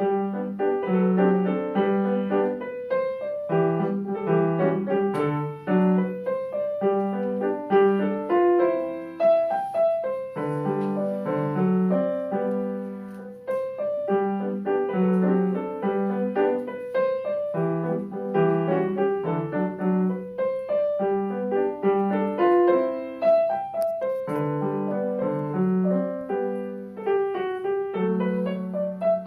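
Solo piano playing a classical piece. It begins just after a short pause, with quick running notes over repeated low chords.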